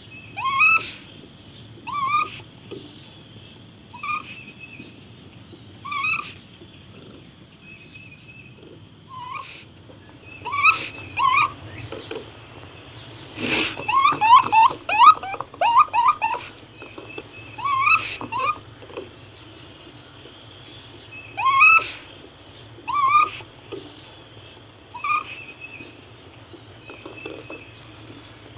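Raccoon calling: short, quavering calls rising in pitch, repeated about every two seconds, with a rapid flurry of overlapping calls near the middle.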